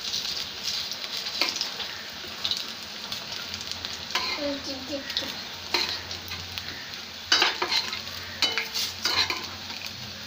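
Vegetable fritters (bora of cabbage, spinach, coriander leaves and pumpkin flowers in batter) deep-frying in hot oil in a kadai, sizzling steadily. A stainless-steel spatula scrapes and knocks against the pan several times as the fritters are turned and lifted, loudest a little past the middle.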